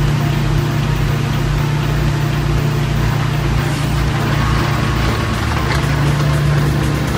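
Diesel engines of a mini excavator and an anchor drilling rig running steadily with a low, even drone, with a faint whine about four seconds in as the excavator's hydraulic rod manipulator moves a drill rod.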